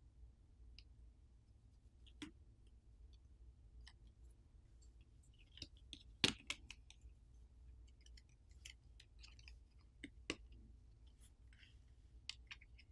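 Plastic pry pick scraping and clicking against the Google Pixel 7a's internal plastic cover as it is pried loose: scattered faint clicks and scratches, the sharpest about six seconds in.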